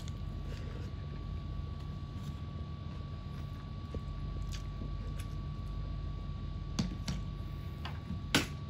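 Eating by hand at a table: a few sharp clicks and taps from fingers, plate and bowl, the loudest near the end, over a steady low electrical hum.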